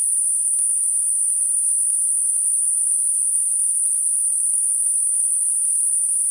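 Synthetic high-frequency narrowband noise: a steady, high-pitched hiss confined to a narrow band with soft edges, generated as a masking sound for high-pitched tinnitus ringing.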